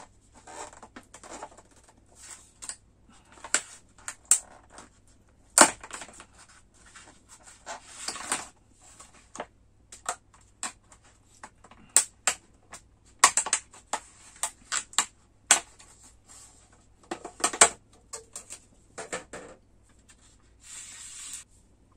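Thin plastic sushi packaging handled and opened: an irregular run of sharp crackles and clicks, with short bursts of crinkling and a rustle near the end.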